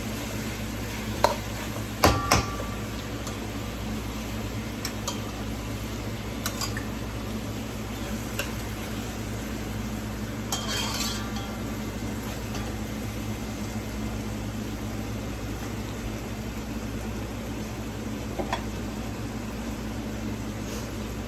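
Chicken feet sizzling as they fry in a skillet, with a cooking utensil knocking and scraping against the pan now and then. The loudest knocks come about two seconds in, and there is a ringing clatter around halfway.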